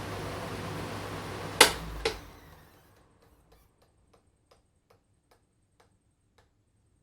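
Electric wall fan running with a steady rush of air, then two sharp clicks as it is switched off. The airflow dies away over about a second, and the blades coast to a stop with faint ticks that come slower and slower.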